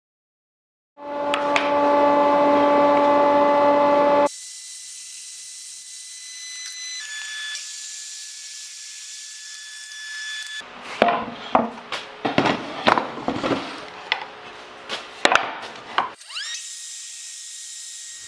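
A run of woodworking shop sounds in short edited segments: a power tool motor running steadily and loudly, then a quieter high hiss with faint tones, then a string of sharp knocks and scraping strokes on wood, and near the end a hiss with a tone rising in pitch.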